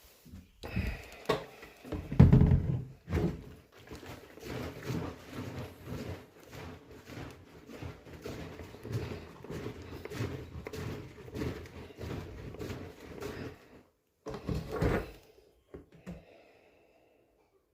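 Irregular clunks, knocks and rattles of a small top-handle chainsaw and its parts being handled during an inspection. The loudest knock comes about 2 seconds in.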